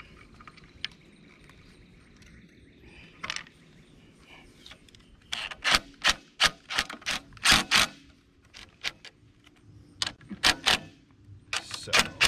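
Cordless DeWalt driver driving bolts into a metal patio chair frame to fasten the sling rail, in a series of short, sharp bursts from about five seconds in and again near the end, with a few faint clicks before.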